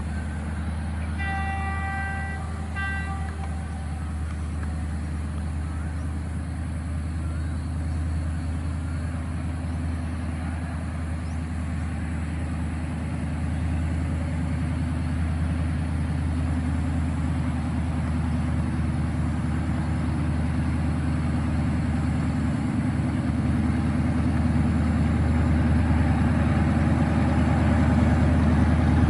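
A Thai diesel locomotive's horn sounds once for about two seconds about a second in. Under it the locomotive's engine drone, hauling passenger coaches, steadily grows louder as the train approaches.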